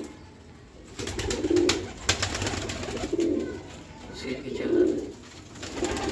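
Royal Teddy pigeon cooing: a low, repeated coo about every second and a half, four times. Light clicks come between the calls.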